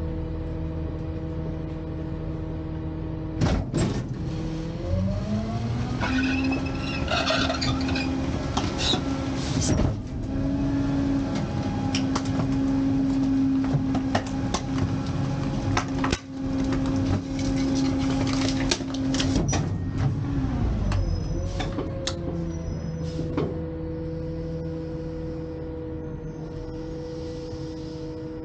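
Garbage truck's diesel engine idling, then revving up about five seconds in to drive the rear loader's hydraulic packer through a compaction cycle. Metal clanks and knocks come from the packer blade working the hopper, and the engine drops back to idle about twenty seconds in.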